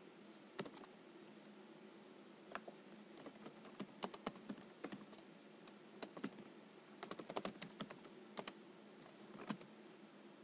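Keystrokes on a computer keyboard, typing a short chat message in irregular bursts of clicks with brief pauses between words.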